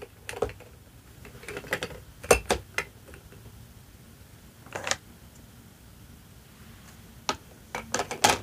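Plastic toy food pieces and toy plates clicking and tapping as they are picked up and set down: a cluster of taps about two seconds in, a single knock near five seconds, and a quick run of clicks near the end.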